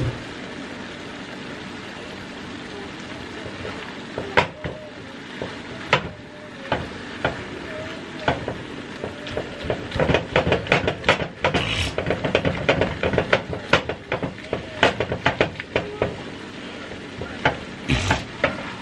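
Ground meat sizzling in a skillet as a silicone spatula stirs and scrapes it. A steady hiss at first, then a few scrapes, and from about eight seconds in a fast run of scraping and clacking against the pan, with another short burst near the end.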